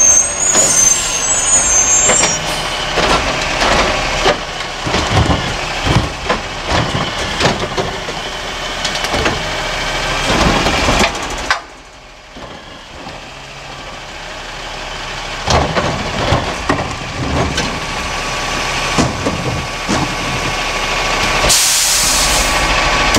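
Peterbilt 320 garbage truck with a DaDee Scorpion automated side-loader, running at the curb while its arm grabs a cart, lifts and dumps it, and sets it back down. The dump brings repeated clunks and bangs of the cart and arm over the engine. A high brake squeal sounds at the start, and a sharp hiss of air comes near the end.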